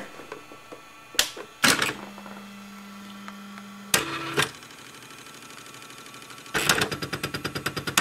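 Olivetti RT 5400 electronic typewriter running its power-on self-test of the carriage and print-wheel rotation. There are a few sharp clunks, then a steady motor hum for about two seconds, another clunk, and a rapid run of ticks near the end, like an old hard drive's seek test.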